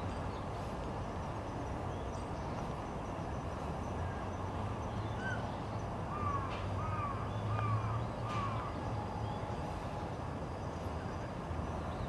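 A crow cawing five times in quick succession about halfway through, each caw a short rising-and-falling call. Under it runs a steady low background rumble.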